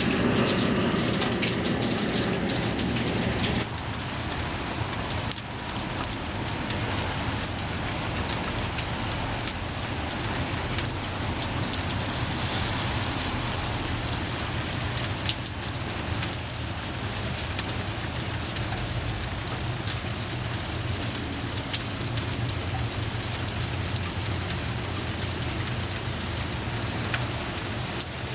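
Steady rain falling, with many small drop hits heard through an even hiss. A louder, deeper rush of water at the start drops away after about three and a half seconds.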